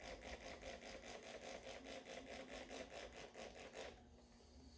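Rapid back-and-forth scrubbing, about seven strokes a second, working soapy water onto a tire to find a leak; it stops just before four seconds in.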